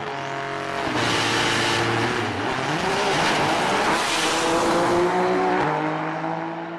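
A high-powered drag car accelerating hard past, its engine note dropping in steps as it shifts up. It is loudest about five seconds in, then fades away.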